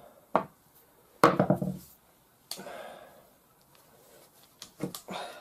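Air rifle barrel and block parts being handled: a small click, a loud knock about a second in, a rubbing scrape at about two and a half seconds, and a few light clicks near the end.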